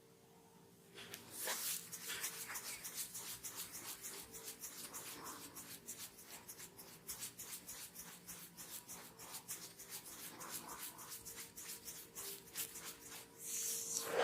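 Hands rubbing a head during a massage, in quick even strokes of about six a second that start about a second in, with a louder swish near the end.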